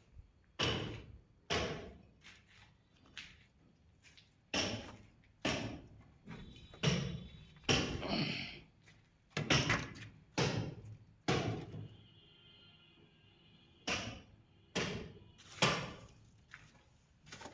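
Hammer blows struck over and over at an uneven pace, roughly one a second, each a sharp knock with a short ring-out. There is a pause of about two seconds near the twelve-second mark before the blows resume.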